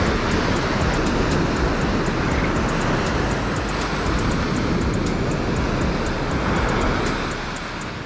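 Surf washing up the beach, a steady loud rush, with wind rumbling on the microphone.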